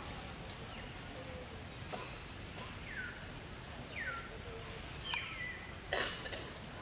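Outdoor ambience with a run of short, high chirping calls that fall in pitch, about one a second, and a couple of sharp clicks near the end.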